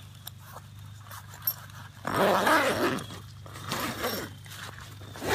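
Zipper on a nylon tent fly being pulled open by hand, in two rasping pulls about two and four seconds in.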